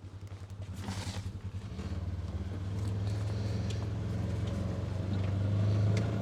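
A vehicle engine running, its steady low note growing louder from about two seconds in as it picks up revs.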